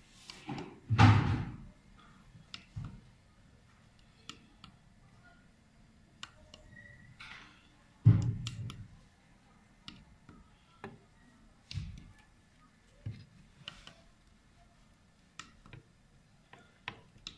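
Handling noise: scattered knocks, clicks and taps as tweeter housings, connectors and wiring are moved about by hand, with two louder thumps about a second in and about eight seconds in.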